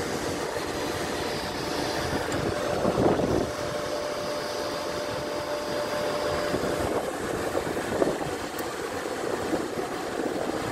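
Helicopter engine running, heard from inside the cabin: a steady rushing noise with a steady whine that holds for a few seconds and then fades, and a few brief rustles.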